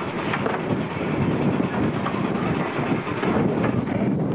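Glenelg H class tram rolling on its rails with a steady rumble and a few clicks from the wheels. The sound changes abruptly near the end.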